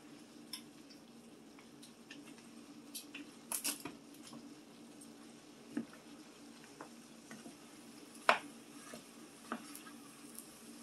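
A utensil stirring food in a frying pan, with scattered clinks and scrapes against the pan; the loudest is a sharp clink about eight seconds in. A faint steady hum runs underneath.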